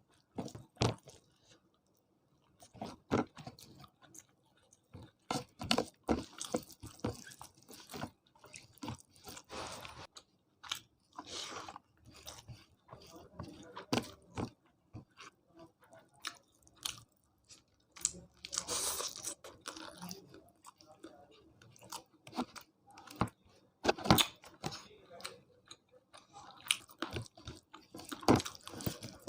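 A person chewing and crunching food up close while eating chicken curry, rice, salad and green chillies, with irregular crunchy bites between short pauses.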